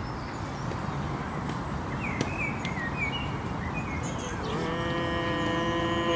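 Outdoor park background with a few short bird chirps, then about four and a half seconds in a man's voice begins one long, steady hummed tone: a qi gong healing sound, held with hands crossed on the chest.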